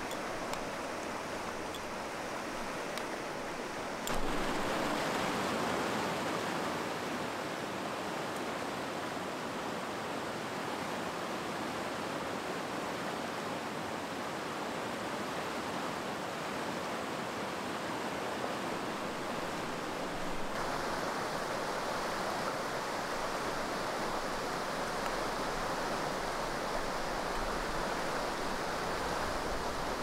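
Mountain stream rushing steadily. Its level and tone change abruptly about four seconds in and again about twenty seconds in, with a few faint ticks in the first few seconds.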